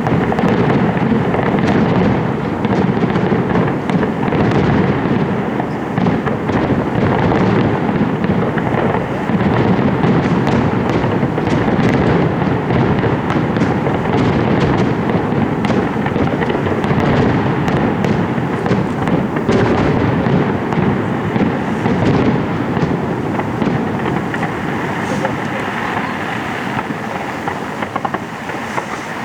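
Fireworks display going off in a dense, continuous barrage of bangs and crackles, easing off slightly near the end.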